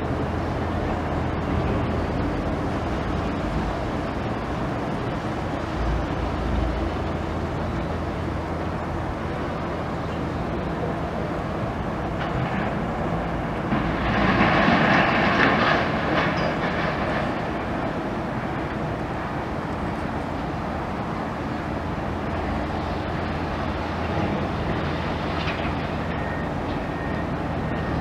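Steady heavy mechanical rumble with low engine tones underneath, swelling louder for a few seconds about halfway through.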